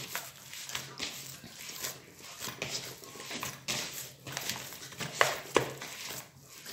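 Hands kneading a sticky date paste mixed with toasted sesame seeds in a plastic mixing bowl: soft irregular squishing and scraping with sharp little clicks, the loudest about five seconds in.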